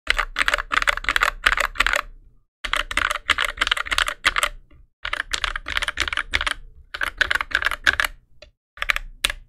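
Fast typing on an NK65 aluminium keyboard with NovelKeys Cream linear switches, lubed with Krytox 205g0 and fitted with TX switch films, under GMK Metropolis keycaps. Dense runs of keystrokes are broken by three short pauses.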